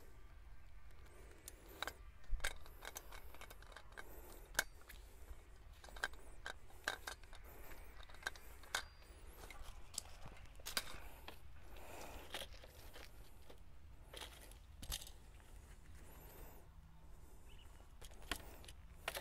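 Faint, scattered crunches and clicks of someone moving about on ground covered in dry leaves and handling tools, with a few sharper clicks in the first few seconds.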